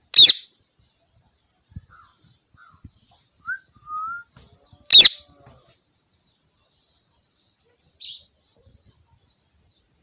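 Indian ringneck parakeet giving two loud, shrill screeches about five seconds apart. Between them come a few soft, short rising whistles, and a fainter high call follows near the end.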